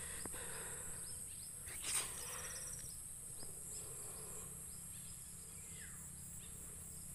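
Steady high-pitched chirring of insects in the field, with faint short chirps and a falling whistle near the end. A brief rustle about two seconds in.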